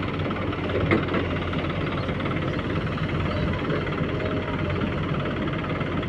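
Diesel engine of a JCB 3DX backhoe loader running steadily under working load, with one short knock about a second in.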